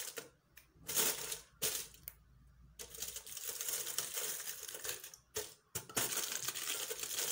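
Aluminium foil crinkling and rustling as hands press it down over the mouth of a clay tangia pot and work a rubber band around it: a few short crackles about a second in, then steadier crinkling from about three seconds in.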